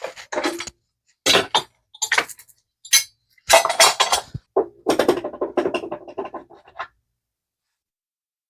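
Loose metal mower parts and tools clinking and clattering as they are handled and set down, in a run of short irregular knocks and rattles that stop about seven seconds in.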